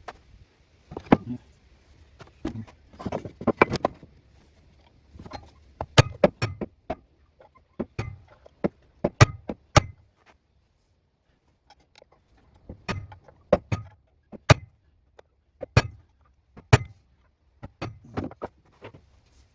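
Irregular metallic clicks, taps and knocks of tools and small metal parts being handled while a wood lathe is taken apart, with a short pause about halfway through.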